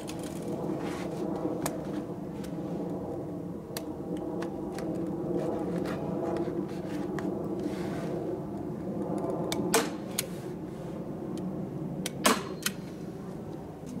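Roofing felt being wrapped and fastened around a beehive: scattered sharp clicks and rustles of the stiff felt, with two louder sharp snaps near the end, over a steady low hum.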